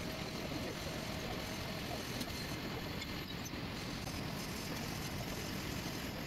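Vertical milling machine running with its end mill cutting a cast iron flange, a steady machining noise.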